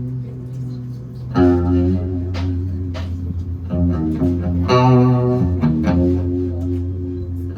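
Guitar and bass guitar playing held chords during a band sound check, with new chords struck about a second and a half in and again near the five-second mark.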